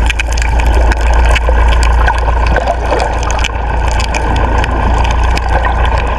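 Small fishing boat's engine running steadily with water rushing and splashing along the hull, a constant low rumble under a loud wash of noise.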